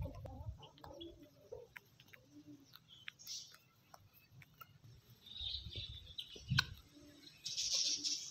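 Birds chirping, with chickens clucking now and then and scattered light clicks. A burst of chirping near the end is the loudest sound.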